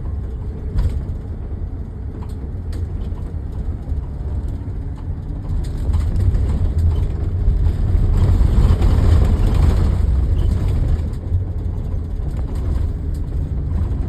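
A car on the move: a steady low engine and road rumble, swelling louder for a few seconds in the middle and then easing back.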